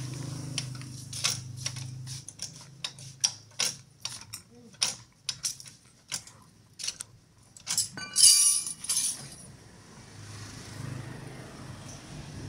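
Metal hand tools and car parts clinking and knocking in a rapid, irregular series of sharp clicks, with a loud ringing metallic clang about 8 seconds in.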